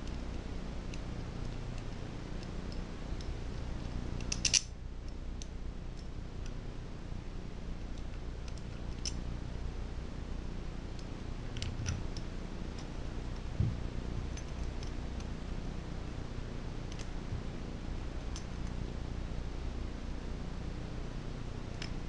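Light clicks and taps of small metal parts as a curved bracket is fitted by hand to a Tecumseh small-engine carburetor, with a sharper click about four and a half seconds in, over a steady low hum.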